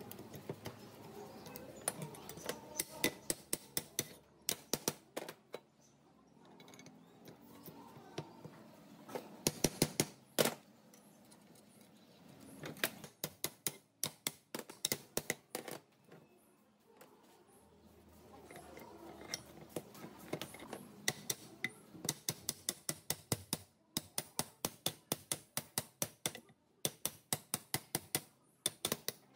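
Runs of sharp metal-on-metal taps and clicks, several a second, as steel parts of a rusty machine frame are knocked and worked by hand, with short pauses between the runs.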